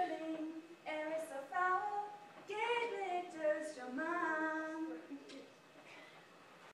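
A woman singing unaccompanied, four short phrases with held, sliding notes, fading toward the end.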